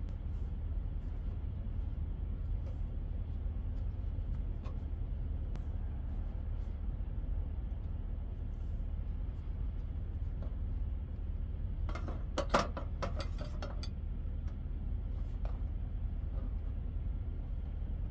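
Steady low rumble, with a short cluster of light clicks and knocks about two-thirds of the way through as things are handled on the table.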